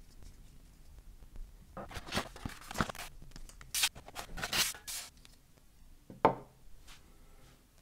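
Cardboard packaging and paper inserts rustling and scraping as they are handled. About six seconds in, a Peak Design car mount is set down on a wooden table with a single sharp knock.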